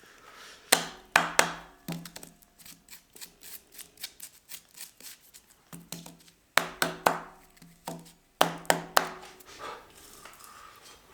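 Kitchen knife cutting a peeled potato on a chopping board: groups of hard chops that ring briefly, with a run of quicker, lighter cuts between them.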